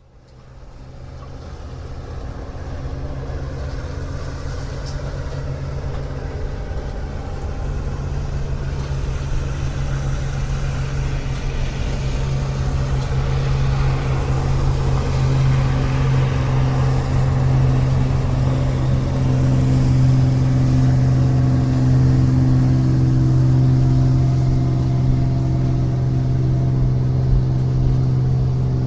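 Motorboat engine running at a steady pitch. It fades in and grows louder over about the first fifteen seconds, then holds steady.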